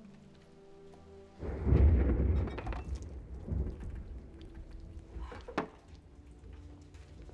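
Low sustained film-score tones, broken about one and a half seconds in by a sudden deep rumbling boom that dies away over a few seconds, with a couple of sharp clicks later on.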